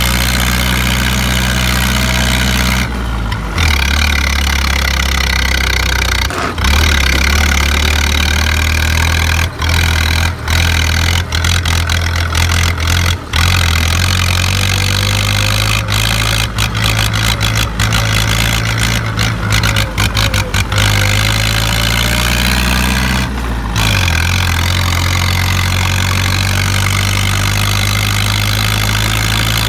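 A tractor's diesel engine running hard through a short open vertical exhaust stack, a loud, steady, low-pitched drone that shifts in pitch a few times. It is pouring thick black smoke from the stack, a sign of heavy fuelling under load.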